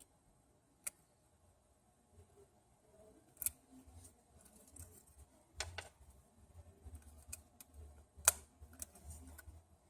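Small tools and phone parts being handled on a work surface: sparse sharp clicks and taps, about a second in, around three and a half seconds, near six and near eight seconds, the last the loudest, with lighter ticks between.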